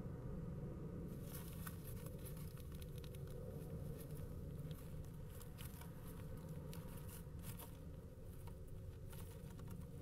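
Faint, irregular scratching and rustling clicks over a steady low hum.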